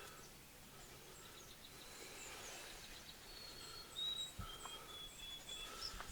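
Faint outdoor ambience with small songbirds chirping and giving short high whistled notes, and one soft low thump about four seconds in.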